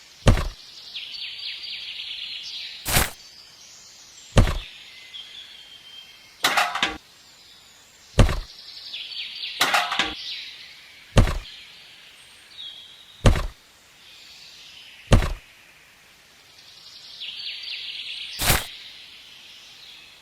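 About nine sharp knocks, one every two seconds or so at uneven spacing, over a high hiss that swells and fades.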